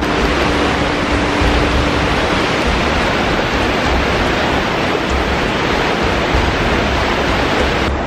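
Waterfall: the steady, loud rush of white water pouring over rock into a plunge pool.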